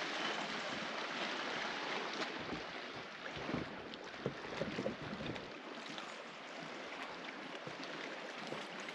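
Water rushing and splashing along the hull of a small fishing boat under way, with wind on the microphone. A few light knocks and splashes come in the middle.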